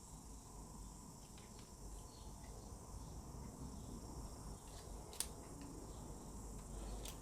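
Faint room tone with a steady high hiss, broken by a few small clicks and two sharper clicks about five and seven seconds in.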